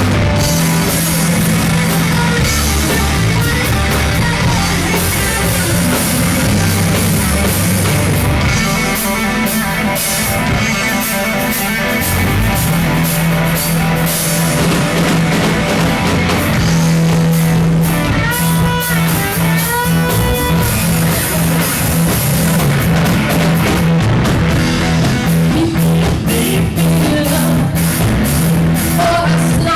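Rock band playing an instrumental passage with no singing: lead guitar over bass and drum kit, with bent, gliding guitar notes about two-thirds of the way through.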